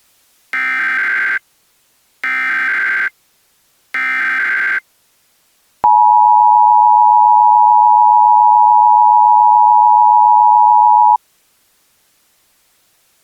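Three short, buzzy squawks of EAS SAME header data tones, each just under a second, evenly spaced. They are followed by the two-tone Emergency Alert System attention signal (853 and 960 Hz), held steady for about five seconds and cutting off abruptly. Together they signal the start of an emergency alert.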